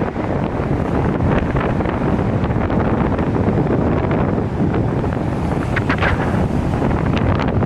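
Wind buffeting the microphone over a steady rush of road traffic.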